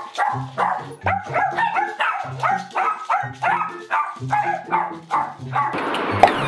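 A small dog barking repeatedly, about two sharp barks a second: excited demand barking for a treat. The barking stops about six seconds in and gives way to a steady rushing noise.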